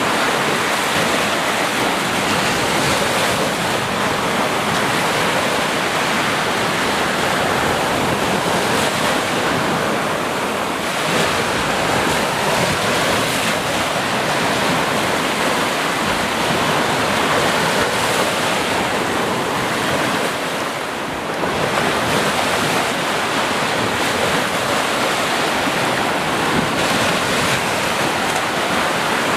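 Sea waves breaking in a continuous wash of surf noise that swells and eases, with a brief lull about two-thirds of the way through.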